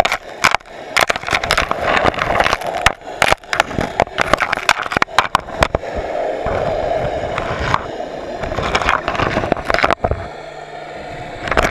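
Underwater sound over a pebble seabed: dense sharp clicks and crackles of pebbles knocking together. About halfway through the clicks thin out, leaving a steady rushing of water.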